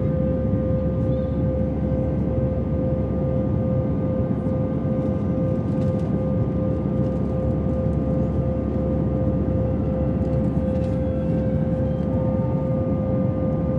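Airbus A320 cabin noise during the climb after takeoff: a steady jet engine and airflow roar with a constant high hum running through it.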